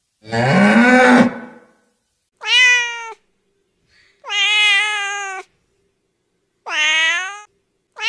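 A cow mooing once, a long low call that rises in pitch, then a domestic cat meowing three times, each meow about a second long.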